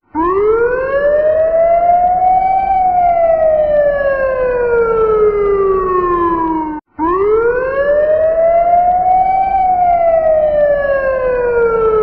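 Fire truck siren on a slow wail: the pitch climbs for about three seconds, then sinks more slowly for about four. It cuts out for a moment about seven seconds in and starts the same rise and fall again.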